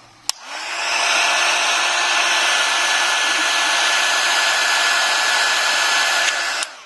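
Electric hot-air blower switched on with a click, spinning up within half a second and blowing steadily with a thin whine, then switched off with a click near the end. It is heating an iPhone 5's home button to soften the adhesive holding it.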